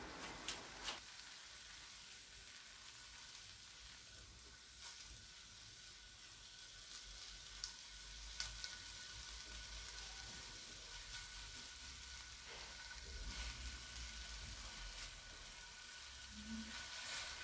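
Skewered chicken kebabs sizzling faintly in oil on a flat pan, with a few light clicks along the way.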